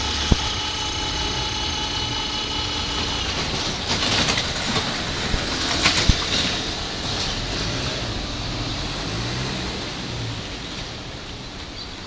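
E235 series electric train running slowly over the points into a station, with a steady whine that stops about three seconds in. Its wheels clack sharply over the rail joints and points a few seconds later, and the running noise then fades as it draws away.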